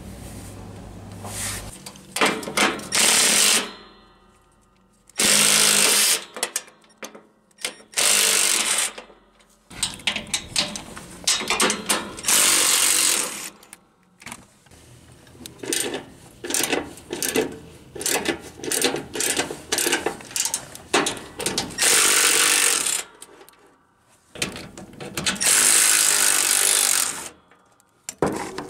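Socket ratchet clicking in repeated quick runs, with short pauses between, as bolts are turned in or out.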